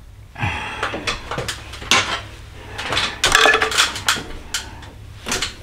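Metal hand tools clinking and rattling against metal engine parts in several short bursts, as a 10 mm fastener on a cold air intake is tightened.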